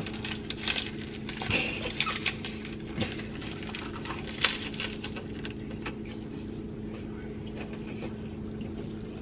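Light crinkling and small clicks of a dry nori sheet being folded and pressed by hand around a hand roll, mostly in the first half, over a steady low hum.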